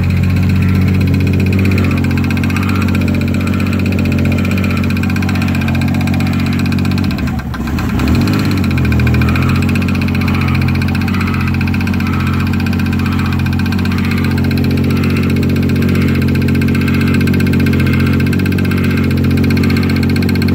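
Toyota 7M-GTE turbocharged inline-six engine running steadily at idle, carrying a noise the owner has not traced despite checking the rod bearings and oil pump and clearancing the oil pan. About seven seconds in, the engine note briefly wavers and dips, then settles again.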